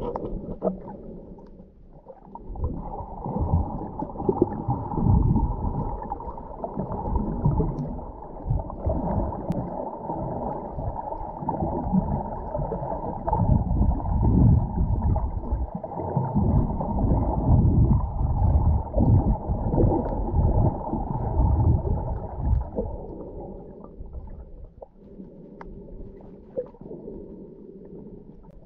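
Muffled underwater sound from a camera held under water: water gurgling and sloshing around it as the snorkeler swims, in low surges that come and go, growing quieter near the end.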